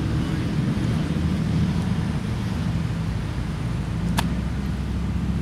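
Steady low outdoor rumble with one short, sharp click about four seconds in.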